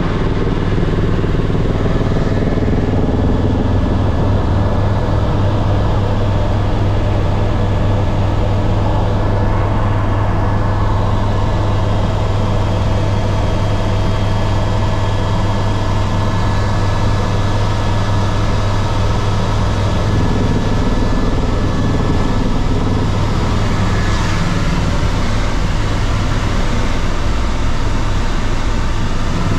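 Loud, steady engine drone with a strong deep hum and a few faint steady whining tones above it.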